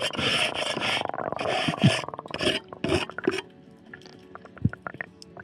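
A hand scraper rasping marine growth off a boat hull, recorded underwater: a run of scraping strokes that stops about three and a half seconds in, leaving scattered small clicks.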